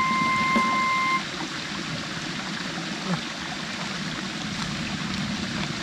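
A held electronic music note ends about a second in, leaving a steady rushing noise like running water.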